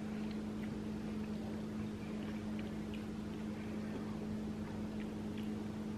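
A steady low hum, with a few faint scattered clicks over it.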